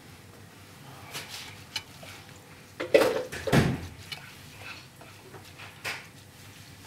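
Silicone whisk working a milk mixture in a stainless steel pot, with scattered light knocks and clatters against the pot and two louder knocks about three seconds in.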